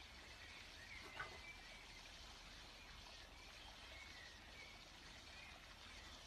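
Near silence: faint outdoor background noise with a few faint, short bird chirps.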